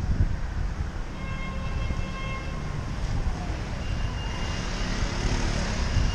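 City street traffic heard from a moving bicycle: a steady low rumble of engines and road noise, with a faint high-pitched tone about a second in and another near the four-second mark.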